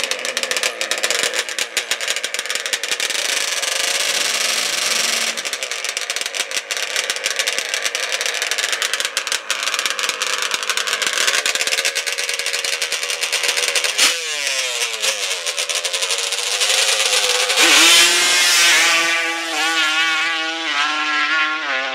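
Mini drag racer's engine revving hard and crackling at the starting line. About fourteen seconds in there is a sharp crack, and the engine note drops, then climbs and wavers as the dragster accelerates away down the track.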